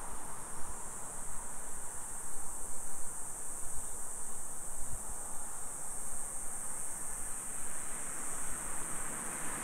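Cicadas droning in one continuous high-pitched buzz that holds steady throughout, over a low hum of street traffic.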